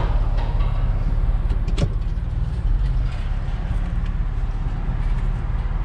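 Chevrolet Camaro SS V8 idling steadily through its newly fitted X-pipe exhaust, a low even rumble with no rattle, heard from inside the cabin. One short click about two seconds in.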